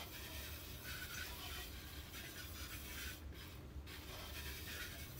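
Water spraying from a pull-down kitchen faucet spray head into a stainless steel sink, rinsing the basin; the hiss of the spray dips briefly a little past three seconds in.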